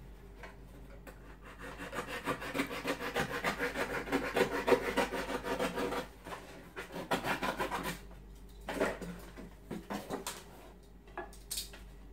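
Rapid rhythmic scraping strokes, about five a second, for several seconds, then a shorter second run and a few separate knocks near the end.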